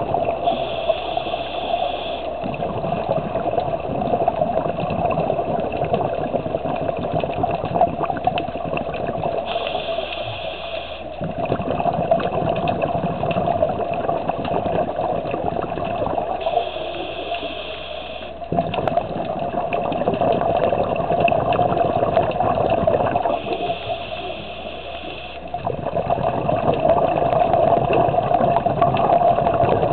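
Underwater recording of a scuba diver breathing through a regulator: a hiss of inhalation about every seven seconds, four times, each followed by a longer stretch of bubbling exhalation, over steady water noise.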